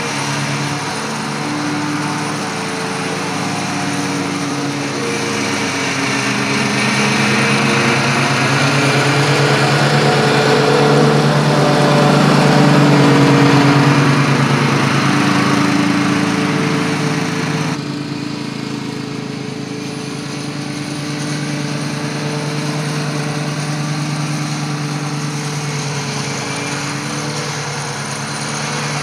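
Gravely ZT1540 zero-turn mower's 15-horsepower engine running steadily as the mower drives across the lawn. It grows louder as the mower comes close in the middle, then drops off suddenly a little past halfway and carries on at a lower level.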